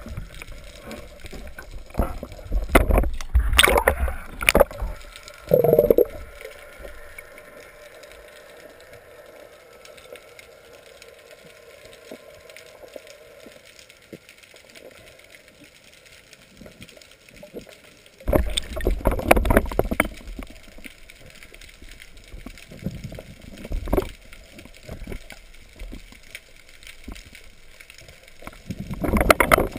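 Muffled underwater water noise and bumps against an action camera's waterproof housing during a spearfishing dive. It comes in loud bursts a few seconds in, again around two-thirds of the way through and at the end, with a quieter stretch of low hiss between.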